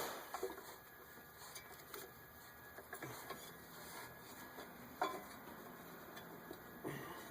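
Scattered light clicks and taps of hand tools on metal parts in an engine bay, with one sharper click about five seconds in.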